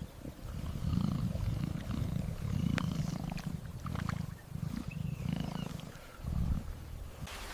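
A large animal's low, rumbling growl, repeated in about eight pulses of uneven length. Rain noise comes back near the end.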